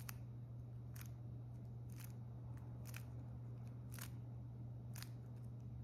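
A 3x3 speedcube being turned slowly through an algorithm, one face turn about every second, each turn a short sharp click. A steady low hum runs underneath.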